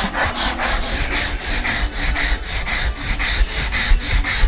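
Wooden conga (tumbadora) shell being smoothed by hand with quick back-and-forth strokes, about four a second, a steady rasping rub on the wood. It is the surface prep that removes scratches before the shell is sealed and varnished.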